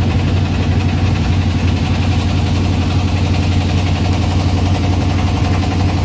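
Motorboat engine running steadily while the boat is under way, a loud, constant low drone with a fine, even pulse.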